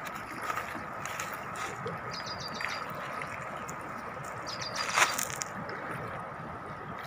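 Hands splashing in shallow river water at the bank, with one sharp loud splash about five seconds in. A bird gives a short rattling trill twice in the background.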